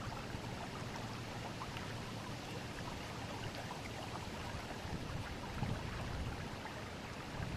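Forest river running steadily over stones, a continuous rushing with many small splashes and gurgles.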